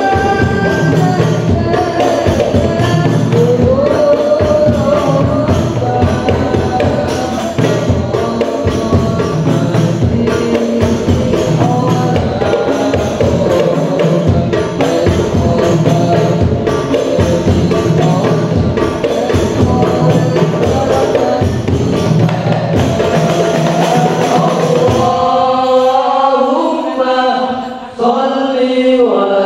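Hadrah ensemble playing: frame drums and a bass drum beat a fast, dense rhythm under group singing of sholawat. About 25 seconds in the drums stop and the voices carry on alone as a chant.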